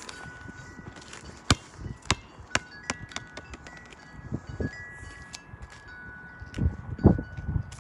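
Wind chimes ringing, with scattered overlapping high tones and light clinks. Near the end a basketball bounces twice on the pavement close by, the second bounce the loudest sound.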